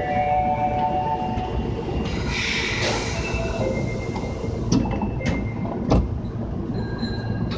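Osaka Metro 22 series subway train running, heard from inside the car: a steady rumble of wheels on rail, with high whining tones at the start. A hissing screech comes about two to three seconds in, and a few sharp clacks follow near the five- and six-second marks.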